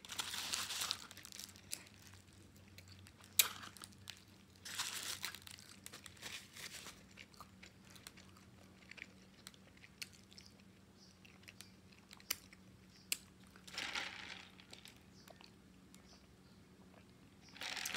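Close-miked chewing and mouth sounds of a person eating, low in level, with a few short hissy rushes and scattered sharp clicks.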